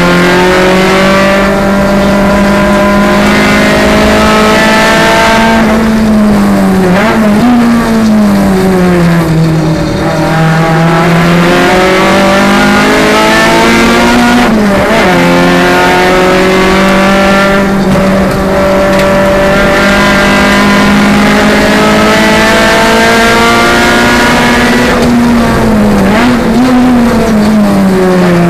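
Renault Clio Sport race car's four-cylinder engine heard from inside the cabin, pulling hard at high revs. Three times the note drops for braking, with quick throttle blips on the downshifts, then climbs back up under acceleration.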